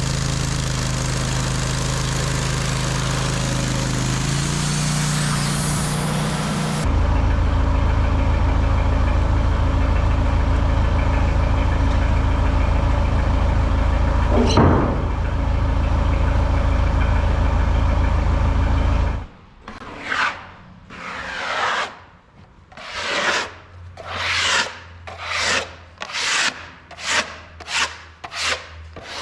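Portable sawmill running steadily, louder from about seven seconds in, then shutting off abruptly about nineteen seconds in. It is followed by a run of brisk strokes rubbing over the freshly sawn hard maple face, about one to two a second and getting faster, like sawdust being swept off the slab.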